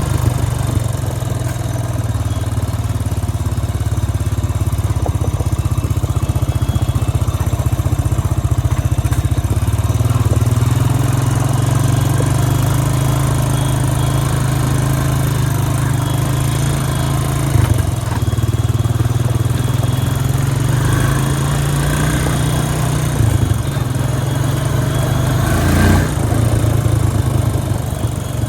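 2002 Honda Rancher ES ATV's single-cylinder four-stroke engine running after a carburetor clean, its speed rising and falling a few times. There is a short knock near the end.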